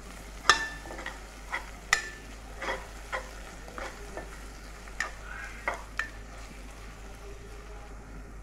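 Spatula stirring and scraping frying onions and spices in a stone-coated frying pan, with irregular sharp knocks against the pan over a quiet sizzle. The knocks stop about six seconds in, leaving only the sizzle.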